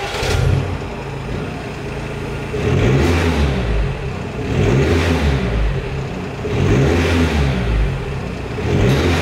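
Audi A4 TDI turbodiesel engine breathing through a custom cat-back exhaust with twin tailpipes. It fires up with a brief flare, idles, then is revved four times, about two seconds apart.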